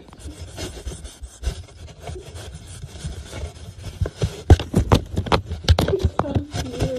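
A cat clawing and batting at a cardboard box from inside, paw scraping and striking the edges of a hole in the cardboard. The scratching gets louder and comes in quick strikes after about four seconds.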